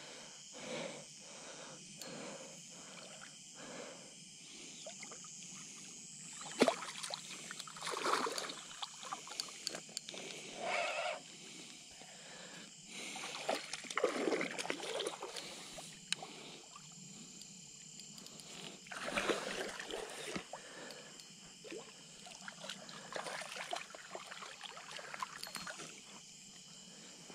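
A spinning reel being cranked in with even clicks about twice a second for the first few seconds, drawing in a hooked turtle. Irregular rustling and handling noises follow as the line and catch are dealt with.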